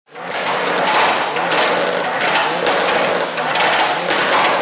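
Two Mitsubishi Lancer Evolutions' turbocharged four-cylinder engines being revved with anti-lag, their exhausts crackling and popping continuously while the engine pitch rises and falls.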